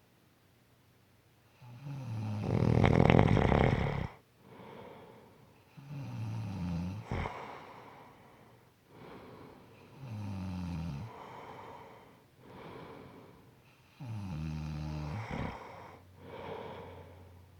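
A person snoring: about four snores, each a pitched breath that falls slightly in pitch and is followed by a softer breath out. The first, about two seconds in, is the loudest and roughest; two others end in a short snap.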